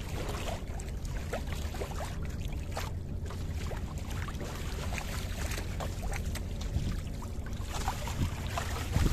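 Water lapping and splashing in short irregular spatters against the hull of a small wooden sailing skiff under way, over a steady low rumble of wind on the microphone.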